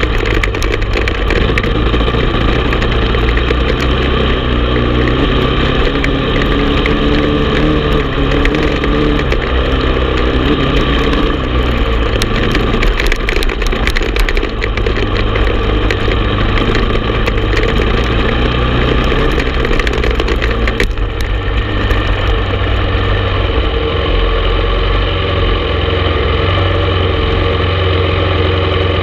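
Honda TRX450 ATV's single-cylinder four-stroke engine running under way, its pitch rising and falling with the throttle, with frequent clicks and knocks. About two-thirds of the way through it settles to a steadier tone.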